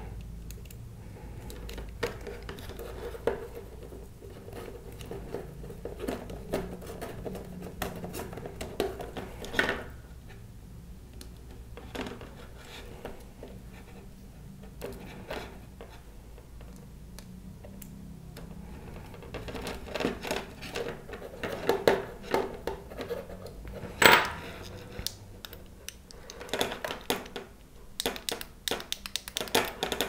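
Small clicks, taps and scrapes of hands handling a plastic radio-transmitter housing and its circuit board while a small screw is driven in with a precision screwdriver. The clicks come scattered and grow more frequent in the last third, with one sharper click about four-fifths of the way through.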